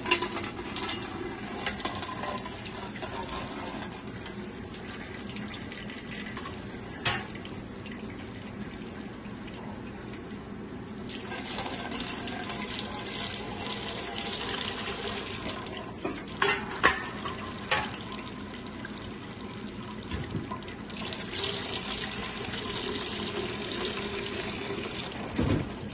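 Rhubarb juice pouring from a pan into a cloth jelly bag and streaming out of the bag into a pot below, a steady splashing pour that swells twice. A few short knocks come through along the way.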